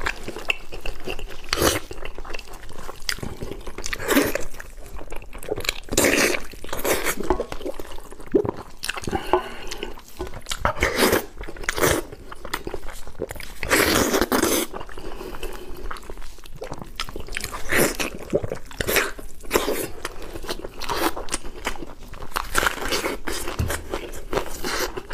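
A person chewing and biting braised pork knuckle: a steady run of irregular short chewing and biting sounds with small gaps between them.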